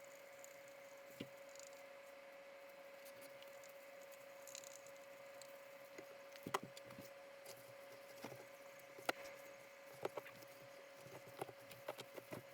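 Faint, scattered light knocks and clicks of wood being handled, more frequent in the second half, over a thin steady hum.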